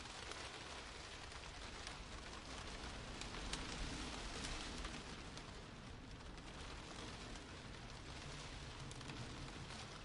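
Steady rain pattering, a dense patter of small drops that grows a little louder in the middle.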